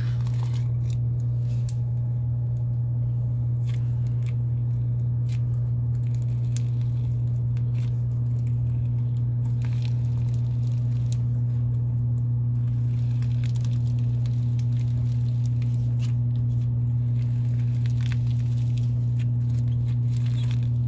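Hands stretching, folding and squishing a somewhat overactivated gray slime jam-packed with foam beads, bingzu beads and glitter, giving many small clicks and crackles. A loud steady low hum runs underneath.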